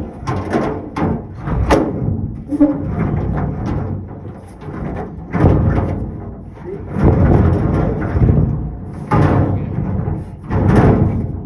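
Heavy metal tool chest rolling and being shoved on its casters: a loud rumbling clatter with repeated knocks and thumps that comes in surges and eases off.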